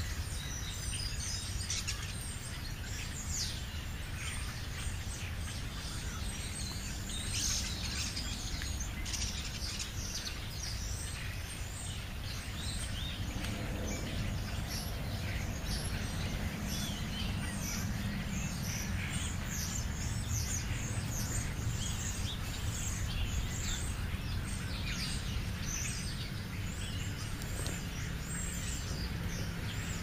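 Small birds chirping in short, scattered calls throughout, over a steady low rumble.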